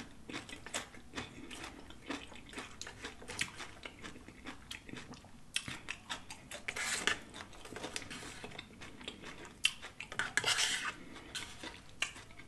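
Close-miked chewing and crunching of loaded tortilla-chip nachos, with wet mouth sounds. A metal fork clicks and scrapes against the platter. The crunching comes in denser bouts about halfway through and again near the end.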